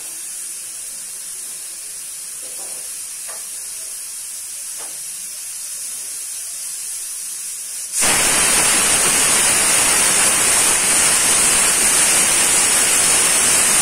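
Pressure cooker on a gas stove letting out steam: a steady high hiss, then about eight seconds in a sudden, much louder rush of steam as it blows its whistle for about six seconds, the signal that it has come up to pressure.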